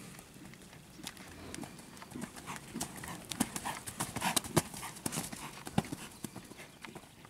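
Hoofbeats of a ridden horse on a sand arena: an irregular run of sharp strikes, loudest and thickest in the middle.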